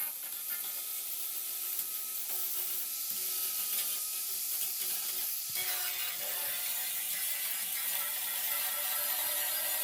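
Power tool working rust off steel: a steady whir with rough, rapid scraping, which changes and becomes fuller about five and a half seconds in.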